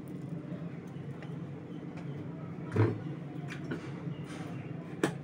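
Steady low mechanical hum, with a short dull knock about three seconds in and a sharp click near the end.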